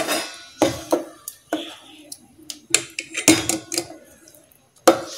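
Stainless-steel ladle clinking and scraping against a steel pot while a thick mix of ground chana dal and melted jaggery is stirred. The clinks are irregular, with short quiet gaps between them, and one sharp knock comes near the end.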